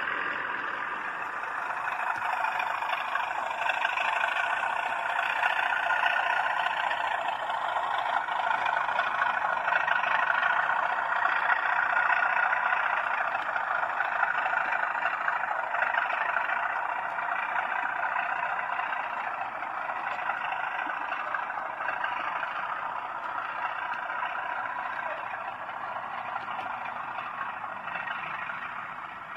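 OO gauge model freight train running past: a steady noisy clatter of the locomotive and wagons on the track. It grows louder over the first several seconds, then slowly fades as the train moves away.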